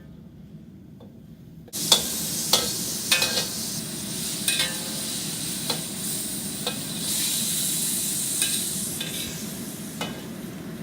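Scallops in black bean sauce sizzling in a hot wok, the hiss starting suddenly about two seconds in, while a spatula stirs them with repeated knocks and scrapes against the wok.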